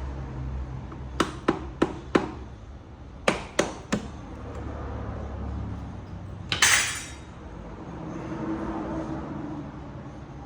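Sharp metal taps of a thin tool on a geared e-bike hub motor's side cover, four quick taps and then three, breaking the siliconed seal between cover and hub. About six and a half seconds in comes a longer, louder clatter of metal.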